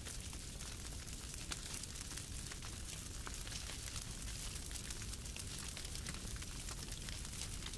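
Wood fire burning in a fireplace, crackling with many small irregular pops over a steady hiss.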